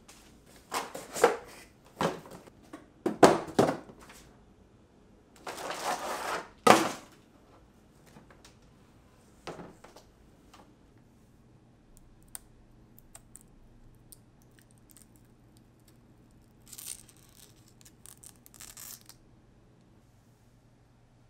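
Monitor packing material being handled by hand: several short noisy bursts of wrapping being pulled and moved, the longest about six seconds in. A few light clicks follow, then a brief rustle near the end.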